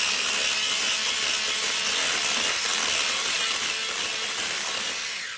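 Electric hand mixer running steadily, its beaters whisking waffle batter in a glass bowl. It switches off shortly before the end.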